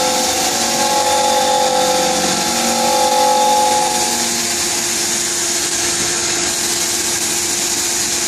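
Dahlih horizontal CNC machining center running a thread-milling cycle, a steady spindle and cutting noise over a constant hiss. A hum of several tones in it fades out about four seconds in.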